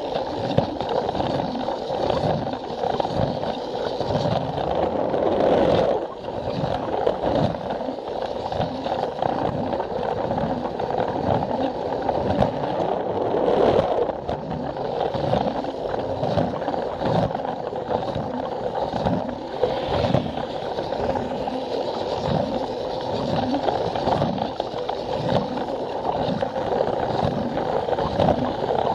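Plarail toy train's small motor and gearbox whirring steadily, its plastic wheels rattling on the plastic track and clicking over the rail joints in a regular rhythm.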